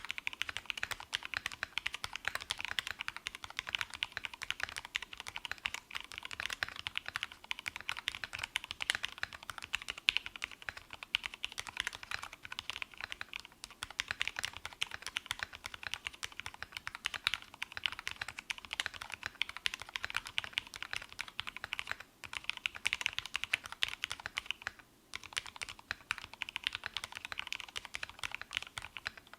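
Fast, continuous typing on a custom 65% mechanical keyboard (Tofu 65 aluminium case) with lubed Tealios V2 linear switches and thick PBT keycaps: rapid, smooth keystrokes, described as sounding like typing on a marshmallow. The typing pauses briefly twice, a little past the middle.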